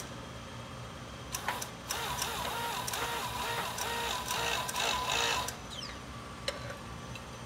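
Hydraulic shop press working as its ram presses ARP bolts into connecting rods: a rhythmic mechanical chatter with clicks, louder for about four seconds in the middle.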